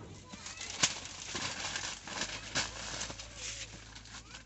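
Sheets of newspaper rustling and crackling as they are folded around a papaya, with one sharp crackle a little under a second in.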